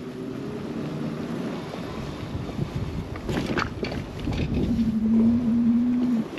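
E-bike ridden slowly over tarmac, with tyre rumble and wind buffeting the microphone. A few short clicks come about three seconds in, and a steady low hum sounds for about a second and a half near the end, then cuts off.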